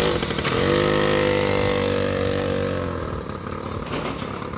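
TVS Super XL moped's small two-stroke engine revved up, held steady for about two seconds, then let back down to a rougher idle. Its exhaust runs loud through a cracked silencer.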